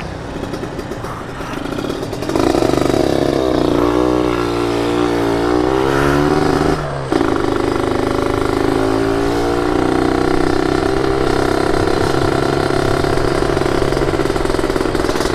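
Yamaha RX-King 135's two-stroke single-cylinder engine, heard from the rider's seat, opening up about two seconds in and rising in pitch as the bike accelerates. It drops briefly at a gear change about seven seconds in, then pulls up again and runs steadily at speed.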